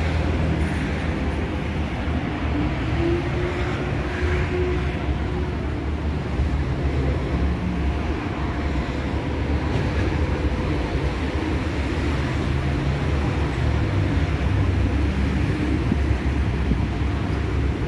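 Steady street traffic noise from cars on the adjacent road, a continuous low rumble with no single vehicle standing out.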